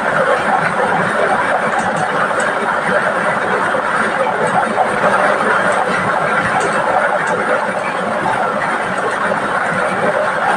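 Air-mix lottery draw machine running: a steady rush from its blower, with the balls lightly clattering against the clear plastic chamber as they are mixed before a number is drawn.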